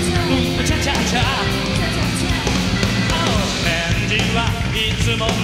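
Live rock band playing, with electric bass, guitar, keyboards and drums.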